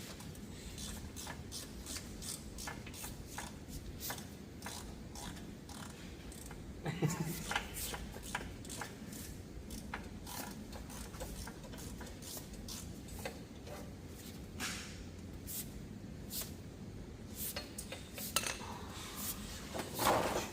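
Scattered light metallic clicks and taps from hand work on a car's rear brake assembly, with a louder knock about 7 seconds in and again near the end, over a steady low hum.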